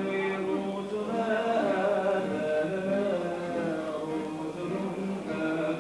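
Mixed youth choir singing a slow Arabic nasheed together in long, held notes that glide gently in pitch.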